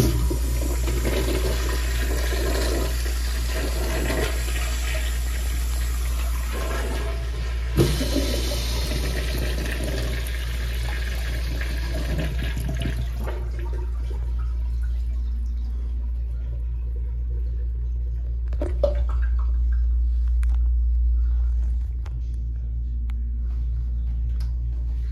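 Universal Rundle Colby urinal flushing: a loud rush of water starts suddenly and runs for about thirteen seconds, then stops, leaving a faint trickle. A steady low hum lies under it throughout.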